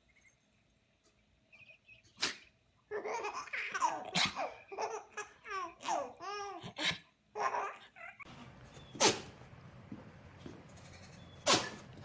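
Short, sharp animal sneezes: one about two seconds in and two more near the end, about two and a half seconds apart. In between, a few seconds of a person laughing.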